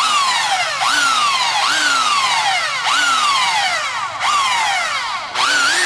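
Harbor Freight belt sander running in repeated short bursts: the motor and belt whine jumps up in pitch and then slowly winds down, about six times, while the belt tracking is adjusted on a new belt.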